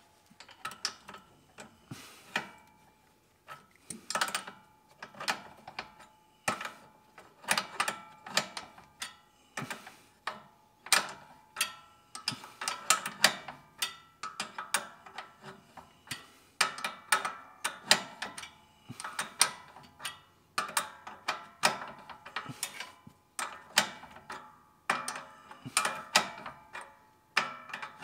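Ratcheting wrench clicking in short bursts, about one burst a second with brief pauses, as a nut is run down on the mower's belt tensioner bolt to put tension back on the drive belt.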